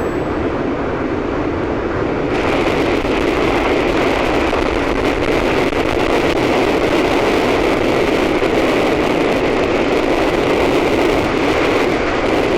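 Riding noise of a Yamaha FZS600 Fazer motorcycle on a helmet camera: steady wind rush and engine noise while under way, growing louder and brighter about two seconds in as the speed picks up.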